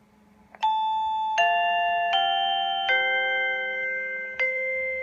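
1byone VP0689 video door phone's electronic doorbell chime playing a melody. It is a tune of bell-like single notes, a new one roughly every three-quarters of a second, starting about half a second in.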